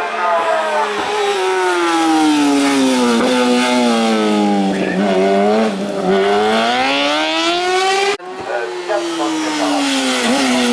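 Racing motorcycle engines running hard. One bike's engine note falls over about five seconds, then climbs for about three. After an abrupt break, a second bike's note falls.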